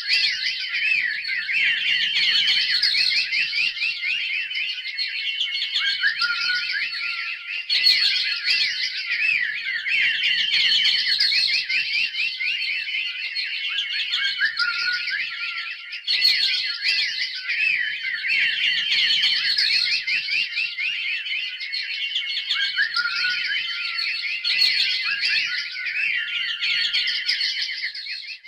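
A pack of hounds giving voice together: many dogs yelping and howling at once in a dense, continuous chorus of high overlapping calls.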